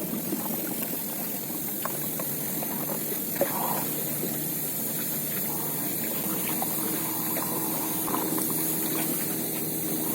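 River water sloshing and trickling close by, with small ticks and drips; a faint steady low hum comes in about two-thirds of the way through.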